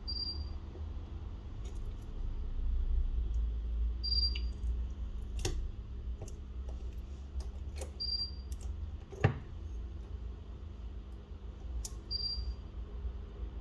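Small sharp clicks and taps of tools working on a smartphone being taken apart, the loudest about nine seconds in, over a steady low hum. A short high beep repeats about every four seconds.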